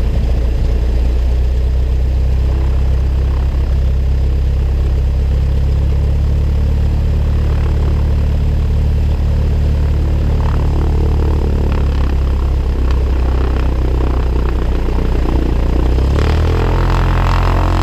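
Cessna Cardinal's piston engine and propeller running at low taxi power, a steady drone. About sixteen seconds in, the engine note rises slightly and grows fuller as power is added.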